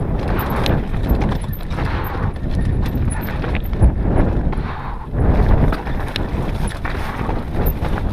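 Mountain bike descending a rocky dirt trail: tyres crunching and knocking over loose stones and the bike rattling, over a steady rumble of wind on the helmet-camera microphone.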